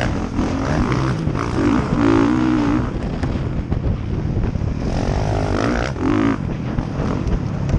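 Dirt bike engine revving up and easing off repeatedly while racing, heard from the rider's helmet camera.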